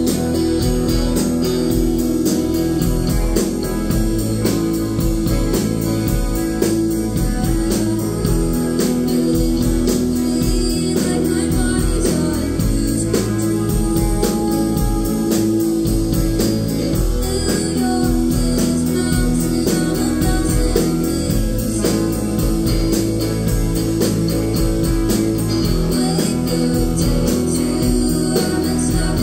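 Live indie rock band playing: electric guitar, bass and drums keeping a steady beat, with a woman singing.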